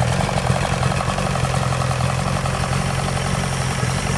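Chrysler 105 hp two-stroke outboard motor running steadily with its cowling off, an even pulsing engine note.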